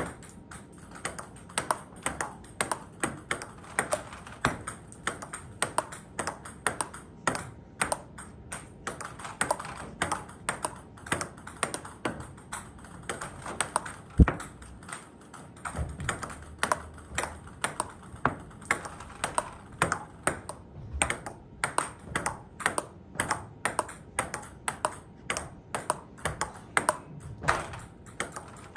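Table tennis rally: the ball clicking off rubber paddles and bouncing on the table in a quick, even rhythm of several clicks a second, during backhand play. One louder knock comes about halfway through.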